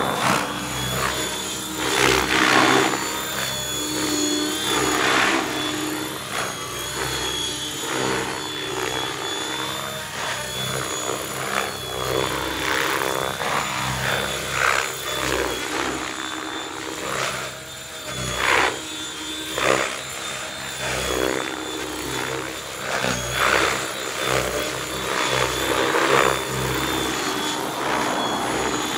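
Mikado Logo 600 electric RC helicopter, powered by a Pyro 650 brushless motor, in flight. Its steady high motor whine runs under rotor noise that swells and fades every few seconds as it manoeuvres.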